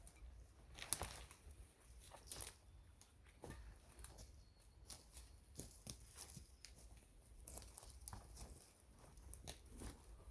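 Scattered rustling and small clicks of camping gear being handled, with short tearing, crinkling rustles of fabric or nylon, the loudest about one and two and a half seconds in.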